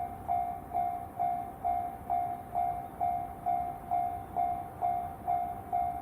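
Japanese railway level-crossing warning bell ringing, a steady electronic ding repeated about twice a second, signalling that a train is approaching.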